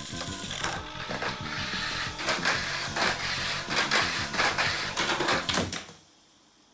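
Tamiya Mini 4WD car running on a plastic track, with a fast, irregular clatter of the car against the track. The sound cuts off suddenly about six seconds in, when the car flies off the course.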